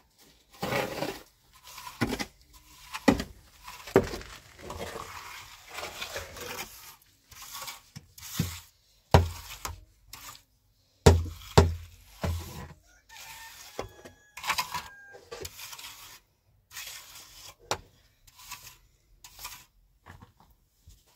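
Irregular knocking, clattering and scraping of objects being handled, with a few heavier thumps about halfway through.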